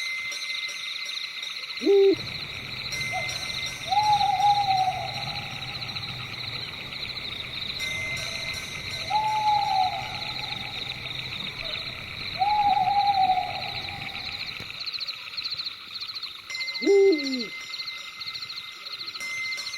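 Owl hooting in a night forest: three drawn-out hoots, each about a second long and falling at the end, plus two short sharp calls that drop steeply in pitch, one near the start and one near the end. Behind them runs a constant high, pulsing chirr of night insects.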